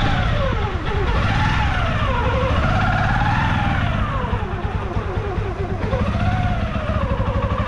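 Motorcycle engine running while riding, its pitch rising and falling as the throttle is opened and eased, over a steady low rumble.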